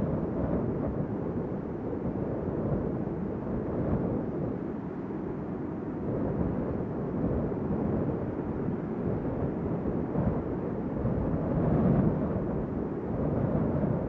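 Strong wind blowing in gusts, a low rumbling rush with no clear pitch that swells and eases, rising to a stronger gust about twelve seconds in.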